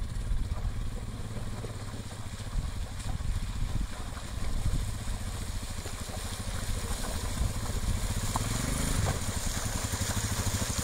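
Royal Enfield motorcycle engine running steadily with an even, rapid pulse as the bike rides through a shallow river ford, with water splashing from the wheels. It grows a little louder toward the end as it comes closer.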